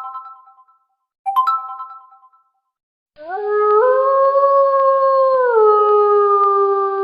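Phone notification tones: a bright chime struck twice, each ringing out and fading within about a second, then from about three seconds in a long howl that rises at its start and falls off in steps.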